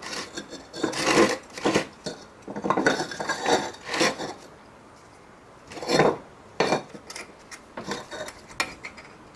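Perforated wooden blocks and a small aluminium part being handled and set down on a wooden bench: irregular clattering and knocks, with a short lull before the loudest knock about six seconds in.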